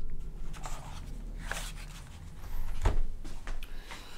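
A plastic laptop being handled and turned over, with a light click about one and a half seconds in and a louder knock near three seconds as the case is set down on the mat.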